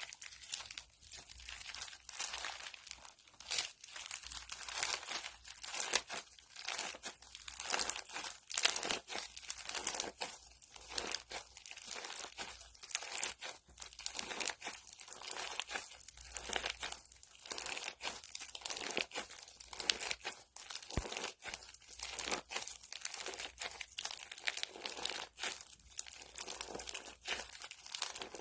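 Crunchy slime being squeezed and worked, giving a dense, irregular stream of crackles and pops with no break.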